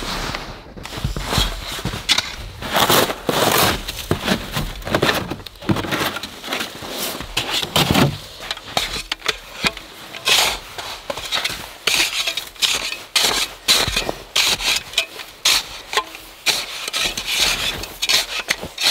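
Snow being cut, scraped and packed with a shovel and a blade: an irregular run of crunching, scraping strokes.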